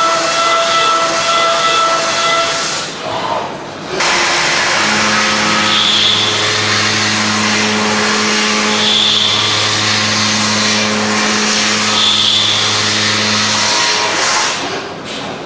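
Metal-cutting machine tool at work: a steady hiss of cutting and coolant over whining spindle tones. About four seconds in the sound changes, and a low hum comes in with a brighter swell roughly every three seconds.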